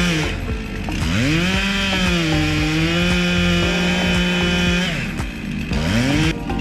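Two-stroke chainsaw revving up to high revs and holding there for about three seconds. It drops back about five seconds in, then revs up again near the end.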